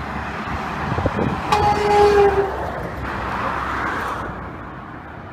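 A truck's horn sounds once, a single-note blast of about a second, as the truck rushes past on the road and its noise swells and fades.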